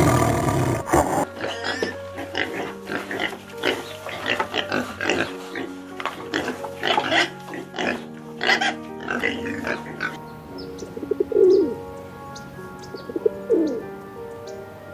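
Pig grunting and squealing in a run of short rough calls, then, about ten seconds in, a pigeon cooing a few times, over background music.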